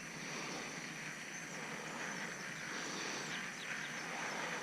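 Steady outdoor ambience of insects droning on one high note, with a few faint short chirps.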